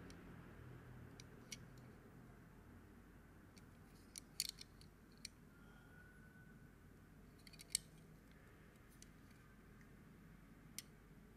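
Near silence broken by a few faint, sharp clicks of fingers handling a small die-cast model car. There is a quick cluster of clicks a little before halfway and a louder single click about two-thirds of the way through.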